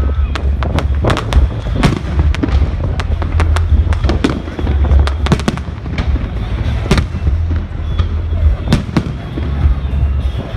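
Fireworks display going off: an irregular run of sharp bangs and cracks, several a second at times, over a heavy, steady low rumble.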